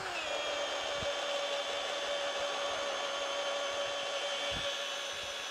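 Ryobi cordless drill boring a 7.5-inch auger bit into a log's end grain: the motor whine drops in pitch at the very start as the bit bites, then runs steadily under load.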